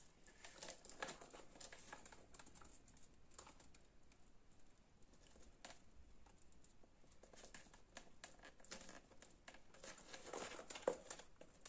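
Faint handling noise: scattered light clicks and rustles as a cord is threaded through a hole in a painted planter pot with small cups dangling from it, a little busier near the end.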